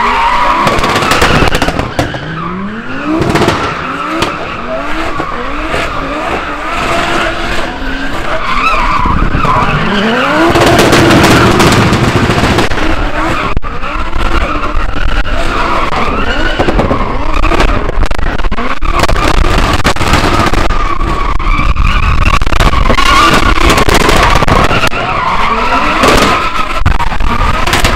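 Drift cars' engines revving hard, the pitch climbing again and again in the first half, with tyres squealing in a long continuous screech as the cars slide.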